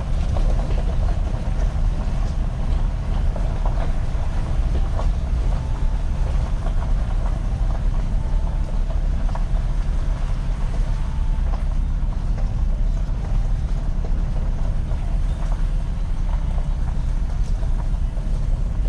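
Vehicle driving slowly over a rough dirt track: a steady low rumble with scattered small knocks and rattles.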